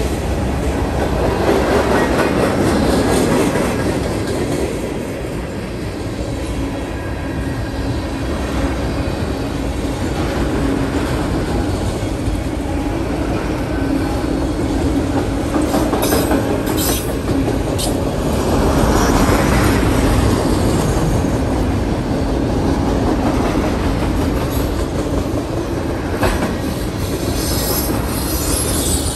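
Freight train cars (covered hoppers, tank cars and autoracks) rolling past: a steady rumble and clatter of steel wheels on the rails, with a few sharp clicks about halfway through and again near the end.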